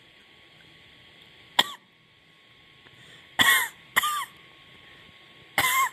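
A woman coughing from the chest with a bad cough, four separate coughs: one about a second and a half in, a quick pair around three and a half to four seconds, and another near the end.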